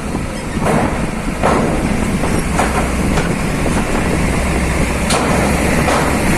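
Heavy vehicle running with a steady low rumble that strengthens about a second and a half in, with several sharp knocks along the way.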